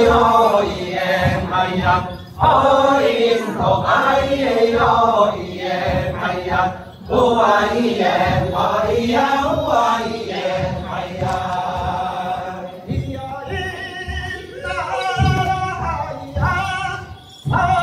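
A mixed choir of Amis elders, men's and women's voices, singing a traditional Amis song unaccompanied, in long phrases broken by short breaths.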